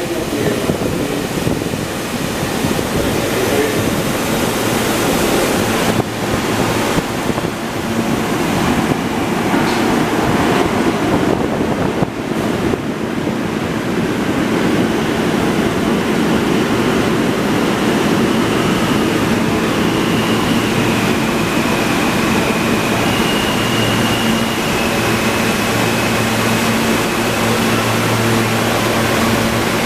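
R160 subway train running, heard from inside the car: a loud, steady rushing roar of wheels and air. A high whine comes and goes, changing pitch in steps, in the second half, and a low steady hum joins it near the end.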